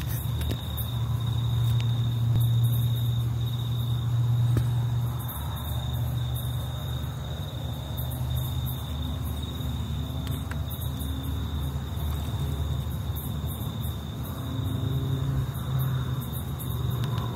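Crickets trilling steadily and unbroken in a high, even pitch, over a louder low steady hum.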